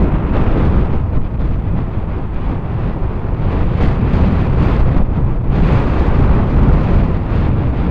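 Wind buffeting the camera's microphone: a loud, steady low rumble with a gust a little past halfway.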